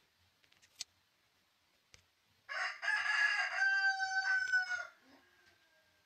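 A rooster crowing once, a long call lasting about two and a half seconds that starts about halfway in and drops slightly in pitch at the end.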